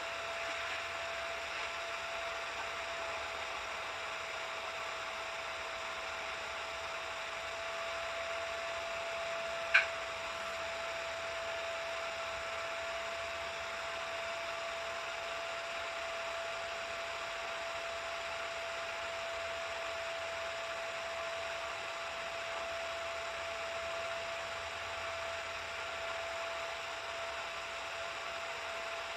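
Steady mechanical hum: a constant whine over an even hiss, with one sharp click about ten seconds in.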